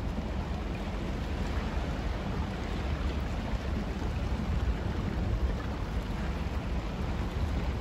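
Broken ice crunching and grinding against the steel hull of the lake freighter Lee A. Tregurtha as it breaks through the ice: a steady crackling hiss over a low rumble.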